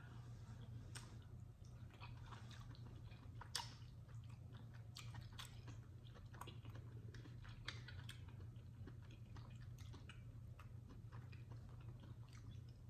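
Faint, close-miked chewing of soft, slippery chitterlings: irregular wet mouth clicks and smacks, with one sharper click about three and a half seconds in.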